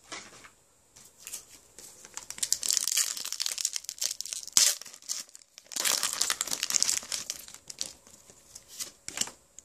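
Foil wrapper of a Pokémon trading card booster pack crinkling in irregular bursts as it is handled and torn open, with one sharp snap about halfway through.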